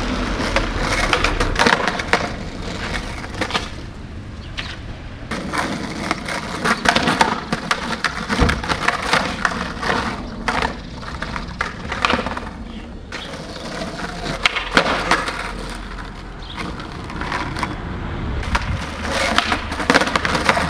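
Skateboard wheels rolling on asphalt, broken again and again by the sharp pops and clacks of the deck being kicked into flip tricks and slapping back down on the road.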